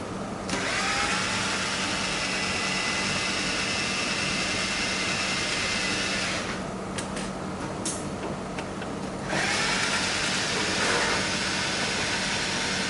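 Electric screwdriver with a 2.5 mm hex bit running twice, each run a few seconds long and starting with a rising whine as the motor spins up, undoing two screws; a few light clicks in the gap between the runs.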